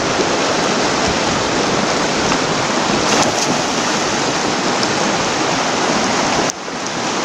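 Steady rush of a swollen, muddy mountain river running over rocks and rapids, dipping sharply for a moment about six and a half seconds in.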